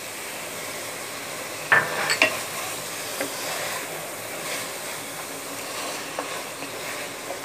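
Steady sizzling of a spiced soya-chunk masala frying in oil in a pan as green peas are added and stirred in, with a few sharp clacks of the spoon against the pan, the loudest about two seconds in.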